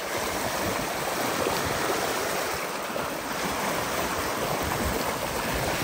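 Water rushing and splashing along a yacht's hull as it moves under way, a steady hiss of the bow wave breaking against the side.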